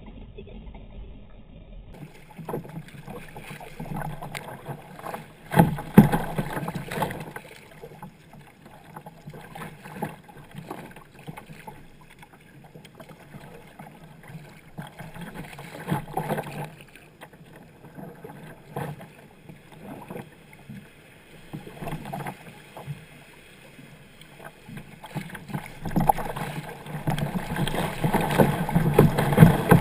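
Water splashing and washing against a sea kayak's hull under the paddler's strokes, coming in uneven surges. Over the last few seconds the water noise swells louder and busier as spray comes over the deck.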